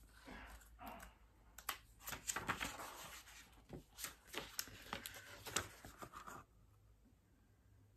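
Paper pages of a Little Golden Book picture book being turned and handled: a run of rustles, crinkles and small taps that stops about six and a half seconds in.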